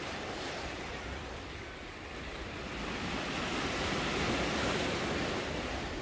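Sea surf washing over a rocky shore: a steady rush of breaking waves that swells to its loudest a few seconds in.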